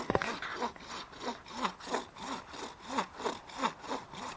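Hand saw cutting through the trunk of a standing Christmas tree, in steady back-and-forth strokes about three a second.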